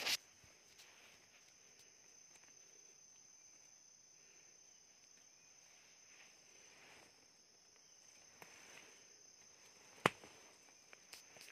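Faint, steady high-pitched trilling of forest insects, with soft rustling of leaf litter underfoot. A sharp click near the start and a louder one about ten seconds in.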